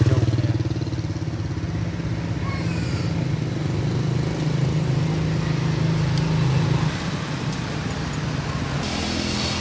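A motor vehicle engine running steadily with a low hum, which drops away about seven seconds in.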